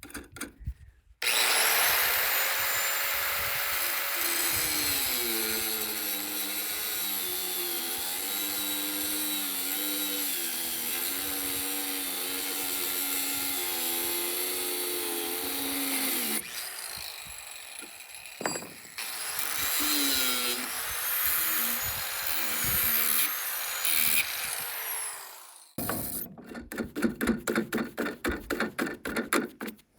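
Angle grinder cutting off steel anchor bolts at the sill plate. The motor pitch dips and recovers as the disc bogs under load. A second, quieter cut ends with the motor winding down, followed by a few seconds of quick rhythmic scraping strokes.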